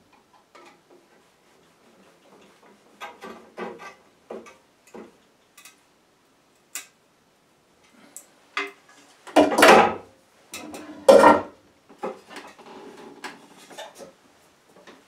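Hand-saw blade being fastened into a wooden handle with small screws, washers and lock nuts: scattered light clicks and metal clinks of small hardware, with two louder, longer rattles of the saw about nine and a half and eleven seconds in.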